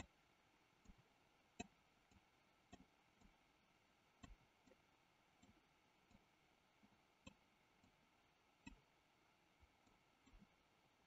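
Faint computer mouse clicks, single sharp clicks roughly once a second at an uneven pace, over near silence.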